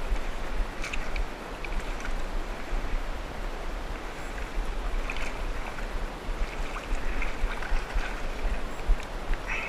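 Shallow spring-creek riffle running over gravel, with water sloshing and splashing as someone wades through it. A low rumble of wind on the microphone sits under the water.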